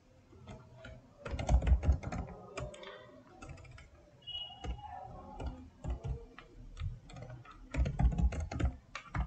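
Computer keyboard typing in irregular runs of keystrokes, loudest about a second in and again near the end.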